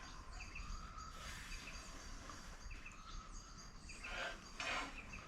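Faint background with a bird chirping a short double note about once a second. Near the end come two brief rustling scrapes of hands working the tent pole and its cord.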